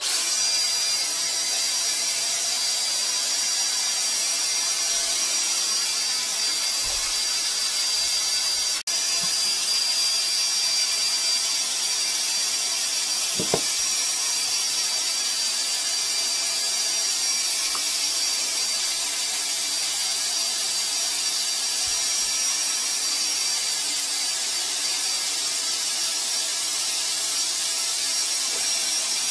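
Flexible-shaft drain cleaning machine running steadily, its motor spinning the cable inside a clogged drain pipe to clear the blockage. It cuts out for an instant about nine seconds in.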